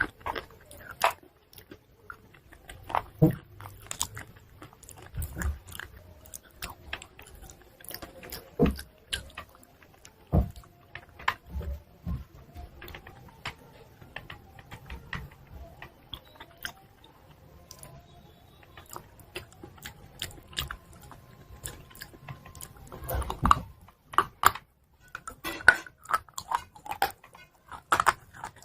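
Close-miked biting and chewing of hard white chalk: irregular crisp crunches with quieter chewing between them, and a run of louder crunches near the end.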